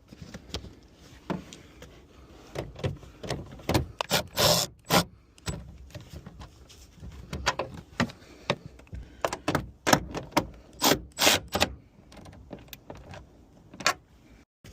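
Hands working on a car's rear trim and tail light: irregular plastic clicks, knocks and rubbing as parts are handled and pressed into place.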